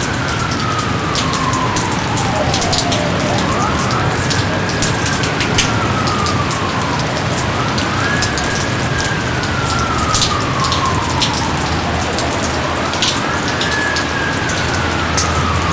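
Steady heavy rain, with individual drops striking close by. Over it a repeated whistle-like call rises quickly, then slides slowly down in pitch, about once every four seconds.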